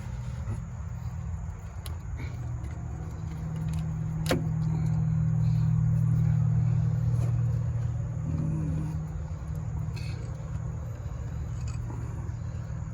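A steady low engine hum that grows louder over the middle few seconds and then eases back, with a single light metallic clink about four seconds in.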